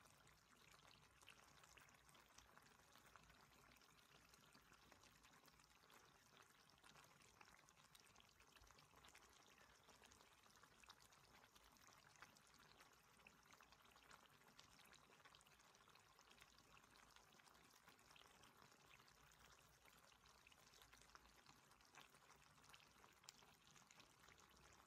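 Faint, steady sizzling and crackling of pork teriyaki simmering in its sauce in a wok.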